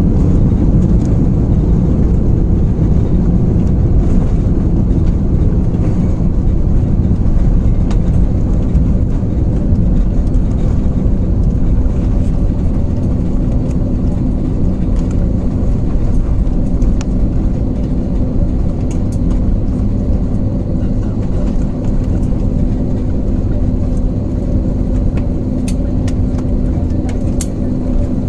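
Airliner cabin noise: a loud, steady low rumble of engines and airflow heard from inside the passenger cabin, easing slightly toward the end, with a steady hum coming in about ten seconds in.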